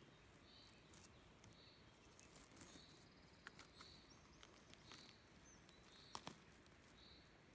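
Faint crackling and snapping of dry spruce needles and twigs as a hand works around a young porcino on the forest floor, with the sharpest snap about six seconds in. Behind it, a soft high call repeats about once a second.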